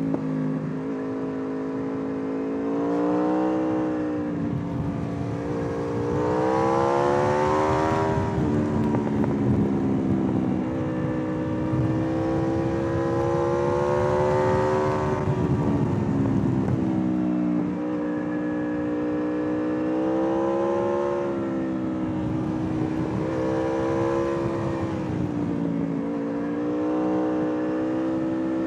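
Aprilia RSV4 R APRC's V4 engine under way, its revs repeatedly climbing and dropping back as the bike accelerates, shifts and slows, with the two hardest pulls about a quarter and half of the way through. A steady rush of wind noise runs underneath.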